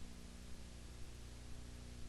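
Steady electrical hum with a layer of hiss and a faint tick about twice a second: the background noise of a video transfer with no signal, the blank blue screen of a player or camcorder.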